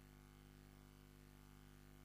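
Near silence: a faint steady hum and hiss, with no other sound.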